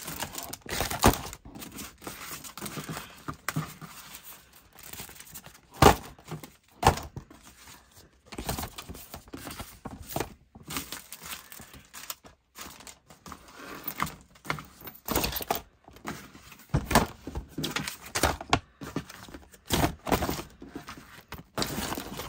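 Papers, sticker sheets, tissue paper and notebooks being shuffled and gathered up on a wooden desk: rustling and crinkling of paper and plastic with scattered thunks as things are set down, and several sharper knocks, the loudest about six seconds in.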